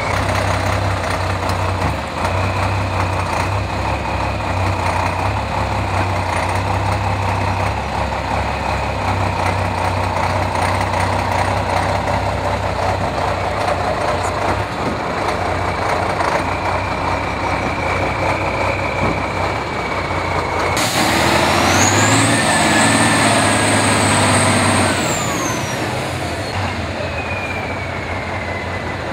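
Tatra 8x8 trial truck's diesel engine running under load as it crawls through mud, with a steady high whine over it. About two-thirds of the way through, the engine revs up louder, a high whine rising with it, holding for a few seconds, then falling away.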